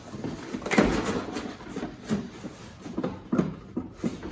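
Parts being lifted out of a cardboard box and set down: rustling with a few short knocks, one about a second in and two more past three seconds.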